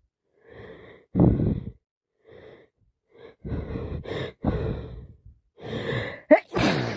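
A woman with a heavy cold taking a series of sharp gasping breaths as a sneeze builds, then a loud wet sneeze about six seconds in.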